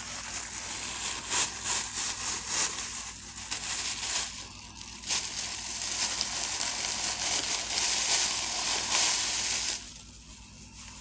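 Dense, crackly crinkling and crumpling of food wrapping being handled and opened for a Subway sandwich, which stops about ten seconds in.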